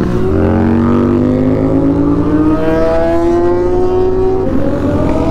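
Hero Xtreme 125R's single-cylinder engine pulling under acceleration, its pitch rising steadily; about four and a half seconds in the pitch drops at a gear change and starts climbing again.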